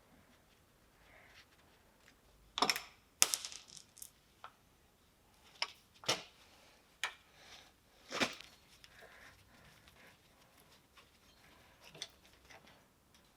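Irregular metallic clinks and knocks of tools and machine parts being handled during a teardown, the loudest cluster about three seconds in, with single knocks scattered after.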